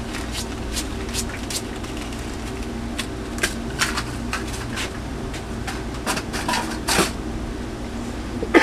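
Scattered light clicks and taps of small parts being handled on a workbench, over a steady low hum, with a louder clatter near the end.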